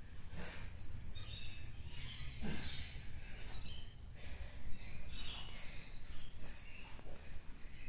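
Grappling on foam mats: irregular short squeaks and scuffs of bare feet, skin and gi cloth against the mat as two people roll.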